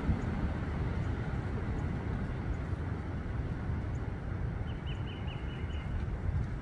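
Steady low rumble of outdoor background noise, with a quick run of short high chirps about five seconds in.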